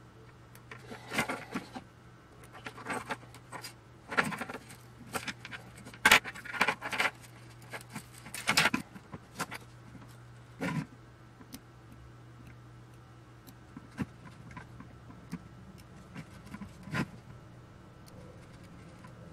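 A loose bundle of hookup wires being pulled apart and untangled by hand: irregular rustling, scraping and light metallic clinks. The handling is busiest in the first half and thins out to occasional clicks after about eleven seconds.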